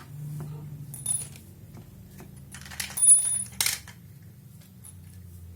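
Light metallic clinks and rattles of small parts being handled: a click about a second in, then a louder cluster of clinks with a brief high ringing in the middle.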